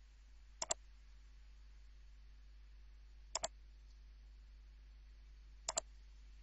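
Computer mouse button clicked three times, a couple of seconds apart, each click a quick double tick, over a faint steady hum.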